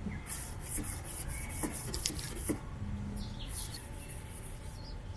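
Rain-X kit's first abrasive polishing pad rubbed back and forth over a lubricant-wetted plastic headlight lens, a run of short scratchy strokes.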